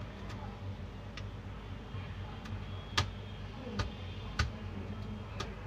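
Scattered sharp clicks and taps of hard plastic and small metal parts being handled as the battery is lifted out of an opened HP 250 G7 laptop. About seven clicks, the loudest about three seconds in, over a steady low hum.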